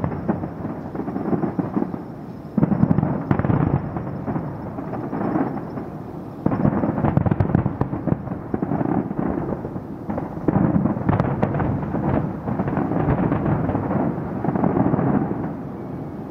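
Aerial fireworks display: dense salvos of shell bursts and crackling that come in surges about every four seconds, dying away near the end.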